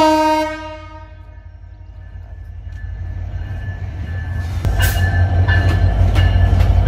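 A train horn, its last blast dying away over about a second. Then the steady low rumble of a train with a few sharp wheel clacks, growing louder from about five seconds in.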